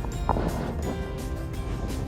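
Background music with held notes over a low, steady rumble.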